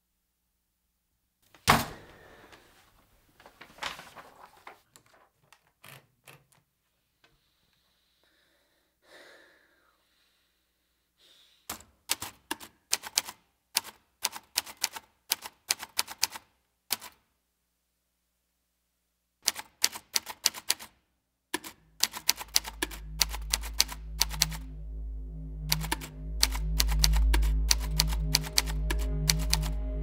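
Old manual typewriter typing: runs of quick sharp key clacks starting about twelve seconds in, after a single heavy thump near the start. Music with a low drone comes in about two-thirds of the way through and plays under the typing.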